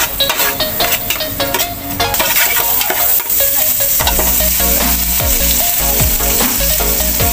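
Sliced garlic sizzling in melted margarine in an aluminium pot, with a metal ladle scraping and stirring against the pot.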